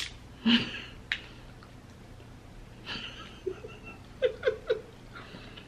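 A woman picking meat from a cracked crab leg with her fingers: a few sharp clicks of shell and some breathing, then, about four seconds in, a short quiet giggle of three quick notes.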